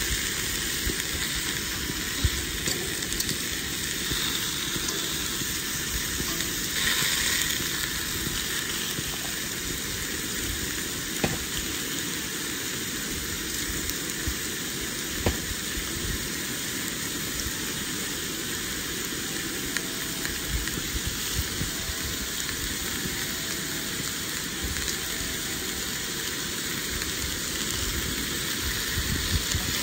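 Beef steaks searing in hot oil in a cast-iron pan, a steady sizzle with a few sharp clicks.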